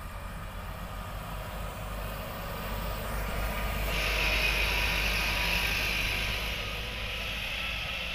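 Mitsubishi Canter dump truck's diesel engine running as the truck drives slowly past close by, growing louder to a peak about four to six seconds in, then easing a little as it moves off.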